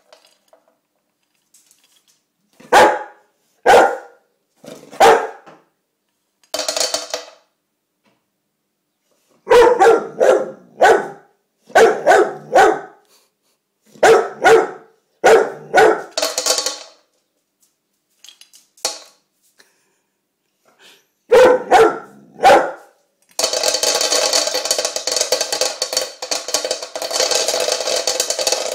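French mastiff (Dogue de Bordeaux) barking over and over, singly and in quick runs of two or three, demanding more food. Near the end the barking gives way to several seconds of dry kibble poured rattling into a stainless steel dog bowl.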